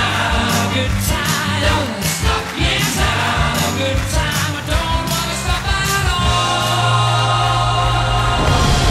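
A stage song with a lead vocal and choir-like backing voices over a driving bass, building to one long held final note about six seconds in. Near the end the song gives way to crowd noise.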